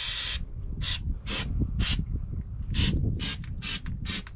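Aerosol can of spray-on rubber coating hissing in a long spray that cuts off about half a second in, then a string of about seven short spurts.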